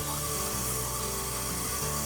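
Background music with held low notes that change about once a second.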